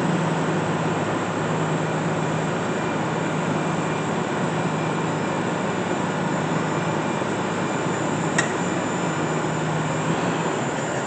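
Jet JTM-4VS vertical milling machine running, its 3 HP variable-speed head driving the spindle with a steady hum. A single sharp click about eight seconds in.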